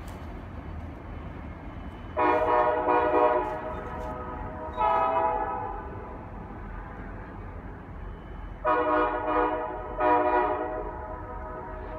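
Diesel freight locomotive's multi-chime air horn sounding several blasts: a long one about two seconds in, a shorter one near five seconds, and two more close together around nine and ten seconds. Each blast is a steady chord. Under the blasts runs the low, steady rumble of the train moving around the curve.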